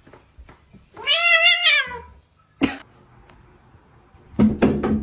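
A domestic cat gives one loud, drawn-out meow lasting about a second, its pitch wavering. A sharp click follows, and near the end a burst of clattering noise begins.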